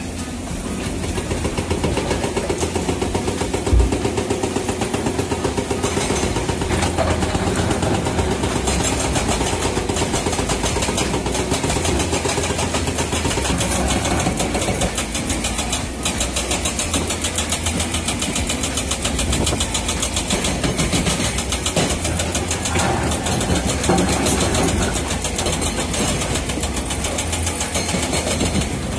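Heavy construction machinery running steadily with a fast, even pulsing.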